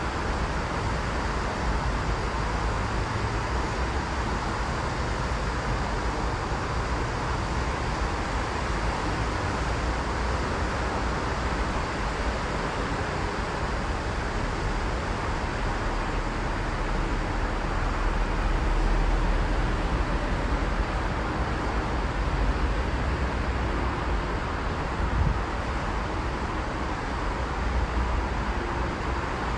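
Steady city traffic noise, an even hiss over a low rumble of distant road traffic, with no train passing.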